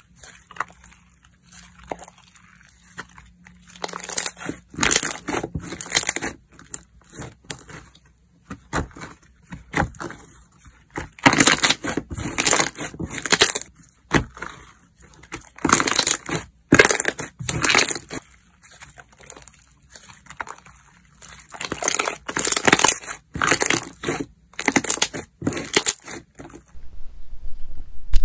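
Hands stretching, folding and pressing a glossy red slime with embedded bits, giving sticky crackling and popping in bursts with short pauses between them. The first few seconds are nearly quiet.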